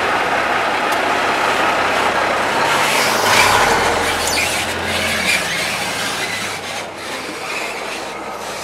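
A heavy tip truck's diesel engine running as the truck pulls away past the microphone, growing a little quieter near the end.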